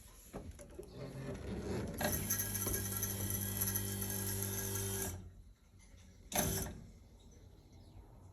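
A small machine running steadily for about three seconds after an uneven start, then stopping abruptly, followed a second later by one short burst of the same sound.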